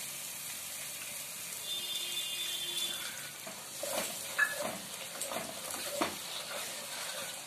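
Fried masala paste sizzling in a wok as water is added to it, then a wooden spoon scraping and stirring it in short strokes from about halfway through.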